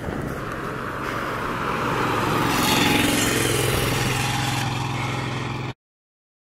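A moving vehicle's engine running steadily under tyre and wind noise, growing louder over the first three seconds. It cuts off suddenly near the end.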